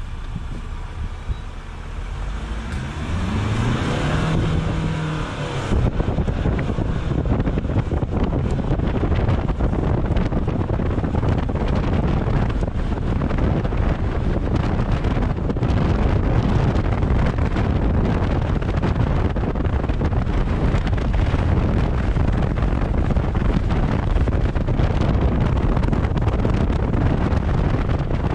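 Ford Ranger Raptor pickup driving up a gravel mountain track. Its engine revs up with a rising pitch from about two to six seconds in. After that, heavy wind buffeting on an outside-mounted microphone and the rough road noise of the tyres on gravel take over, steady and loud.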